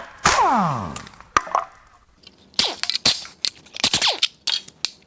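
Pneumatic impact wrench briefly running an exhaust manifold bolt out of a 5.9L Cummins head, its pitch falling as it spins down. Then a run of sharp metal clicks and knocks as the loosened manifold and its heat shield are worked by hand.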